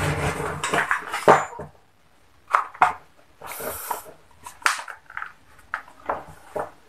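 Hard plastic halves of an electric drill's housing being handled and fitted together: a run of clattering knocks and clicks, busiest in the first second and a half, then scattered knocks.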